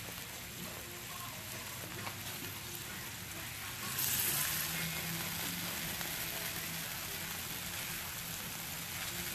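T-bone steaks sizzling on a hot flat-top griddle. About four seconds in, a steak is flipped onto the hot metal and the sizzle jumps louder, then settles back to a steady hiss.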